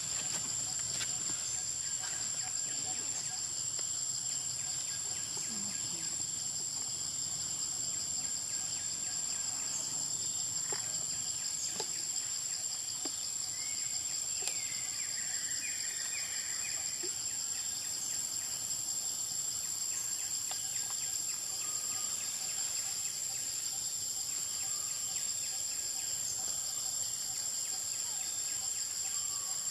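Steady high-pitched chorus of forest insects, a continuous buzzing with a fast pulse. A few faint chirps sound about halfway through.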